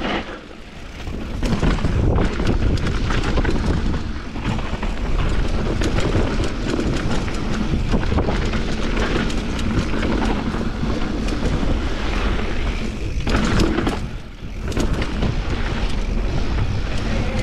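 Mountain bike running fast down a dry dirt trail: wind buffeting the microphone over the tyres crunching on loose dirt and stones, with the bike rattling over bumps. The noise drops briefly twice, just after the start and about fourteen seconds in.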